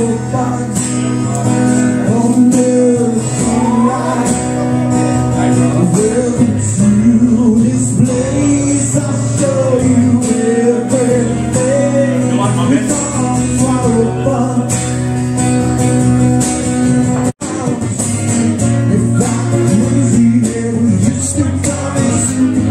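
Live blues band playing an instrumental stretch, a guitar line with bending notes over steady bass and rhythm. The sound cuts out for an instant about seventeen seconds in.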